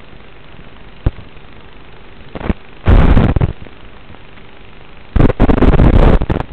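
Steady hiss of an analog FPV video receiver's audio channel, broken by two loud bursts of static, about three seconds in and again near the end. The bursts are the sign of the video signal from the racing quadcopter breaking up.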